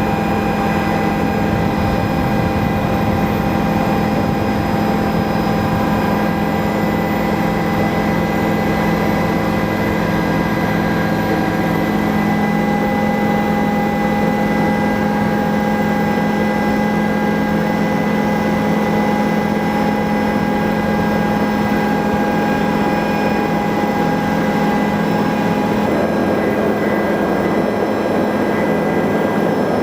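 Helicopter in flight: a steady turbine whine with several fixed tones over the rotor and engine noise, unchanging in level.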